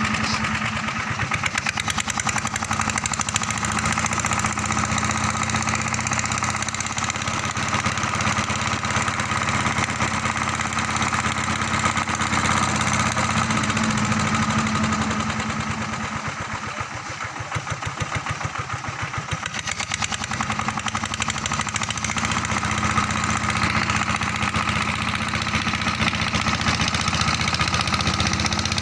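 Engine of a river sand suction pump running steadily with an even firing rhythm. It drops in level for a few seconds a little past halfway, then comes back.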